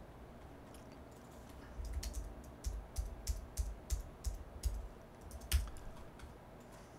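Computer keyboard typing: a run of irregular keystrokes starting about two seconds in and stopping shortly before the end.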